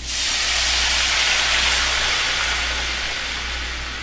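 Vegetable broth poured into a hot sauté pan of browned vegetables and spices: a sudden loud hiss and sizzle of steam as the liquid hits the pan, slowly dying down as the pan cools.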